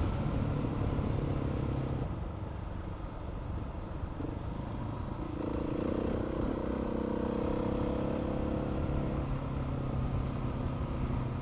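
Adventure motorcycle engine running as the bike rides a dirt track, easing off about two seconds in, then pulling harder from about five and a half seconds before easing again near nine seconds, with a low rumble of wind and tyre noise underneath.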